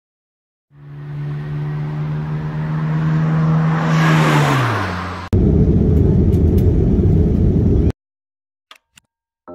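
An engine-like hum that swells and then drops in pitch as if passing by, followed by a sudden loud low rumble that cuts off abruptly.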